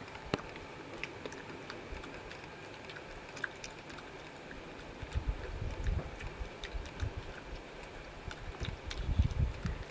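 European badger munching food from a wooden feeding table: a string of sharp, crunchy clicks as it chews, with heavier low thuds coming in from about halfway through.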